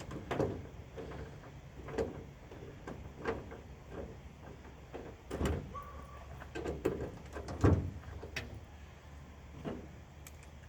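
Scattered metal clicks and knocks, some in quick little clusters, as a bolt on a pickup's tailgate latch is worked in with a 12 mm socket. A short faint tone sounds about halfway through.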